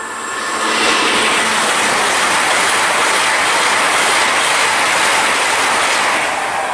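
Great Western Railway passenger train running through the station at speed without stopping: a loud rush of wheels and air that builds over the first second, holds steady, and eases off about six seconds in as the train clears.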